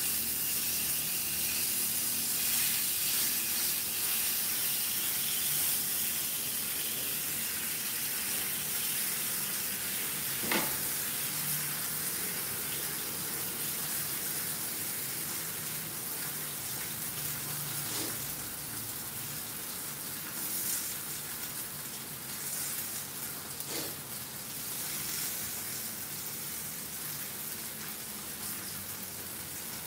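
Salmon steak frying in oil in a cast-iron skillet: a steady sizzle that eases off a little in the second half, with three sharp pops of spattering oil.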